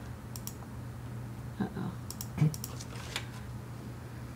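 Computer keyboard keystrokes: a few short bursts of clicks over a steady low hum.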